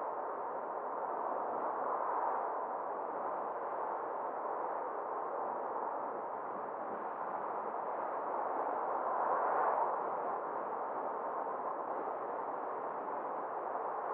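Steady road and wind noise of a moving car, an even hiss with a slight swell about nine and a half seconds in.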